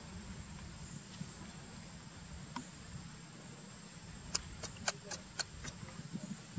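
A quick run of six sharp clicks, about four a second, some four seconds in, over a steady high-pitched whine and a low outdoor hum.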